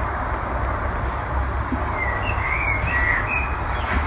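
A bird's short warbling song, faint over a steady low rumble and hiss, starting about two seconds in and lasting about a second and a half.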